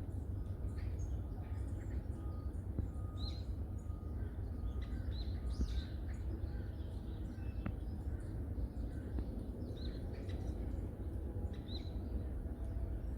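Small songbirds calling in woodland: short, high chirps scattered throughout, a few louder ones repeating every couple of seconds, over a steady low rumble.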